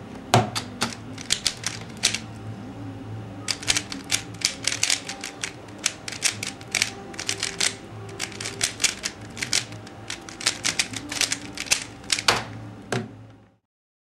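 Dayan Guhong 3x3 speedcube being turned fast by hand: rapid runs of plastic clicks from the layer turns, with a short pause about two seconds in, cutting off just before the end.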